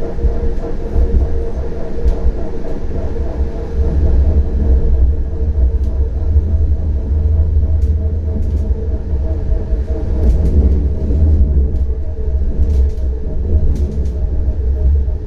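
CAF Urbos 100 tram running along the line: a continuous low rumble under a steady hum, with a few brief faint ticks in the second half.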